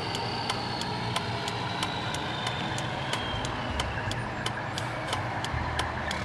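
Truck driving noise from inside the cab: engine and road noise running steadily, with a light regular ticking about three times a second.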